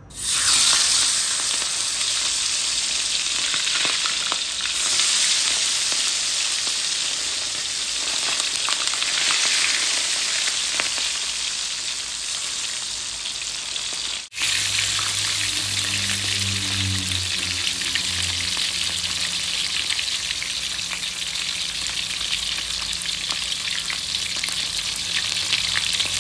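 Small whole fish, baby giant trevally, frying in hot oil: a loud, steady sizzle that starts abruptly as they go into the pan. It cuts out for an instant about halfway through, then carries on.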